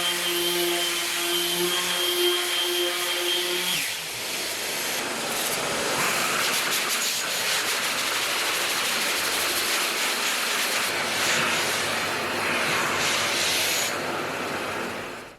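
A motor running with a steady hum for about four seconds, then a loud, rough hissing noise that rises and falls in strength and cuts off suddenly at the end.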